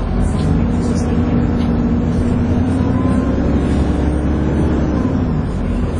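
Dennis Trident 2 double-decker bus (Alexander Enviro 400 body) running under way with its steady hoover-like whine; the engine note holds and then drops in pitch about five seconds in as it eases off.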